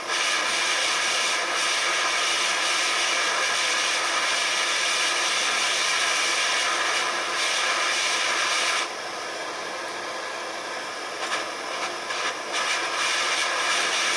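Propane blowtorch flame hissing steadily as it heats a steel nail. About nine seconds in the hiss drops quieter, then flutters back up to full strength near the end.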